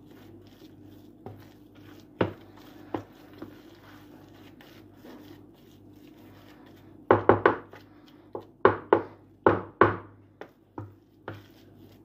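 A spoon stirring a damp mix of bulgur, semolina and flour in a bowl, knocking against the bowl in sharp taps. The taps are scattered at first, then come quickly, about ten of them, in the second half. The grain is being worked so that it soaks up boiled water for kibbeh dough.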